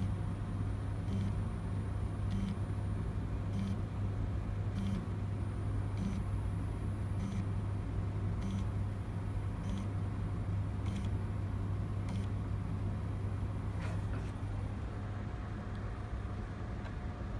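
M3D Micro 3D printer's stepper motors running a skip test, driving the print head across the bed with a steady low hum. A regular tick sounds about every second and a quarter.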